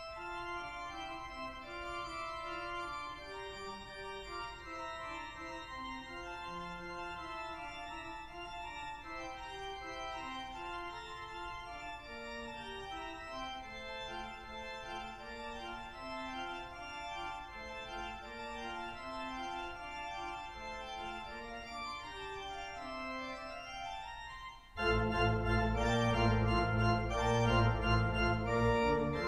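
Large church pipe organ playing a moving melodic line over soft held chords. About 25 seconds in it swells suddenly to a much louder, fuller sound with deep pedal bass.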